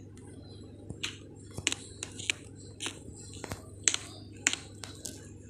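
A series of about ten sharp, irregular clicks or taps over a steady low hum.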